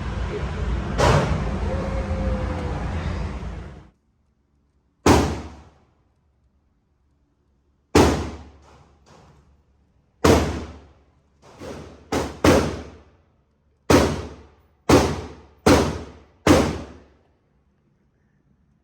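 Steady noise for about four seconds, then single gunshots at a shooting range: about nine loud shots spaced one to three seconds apart, each with a short ringing tail, and a few fainter shots between them.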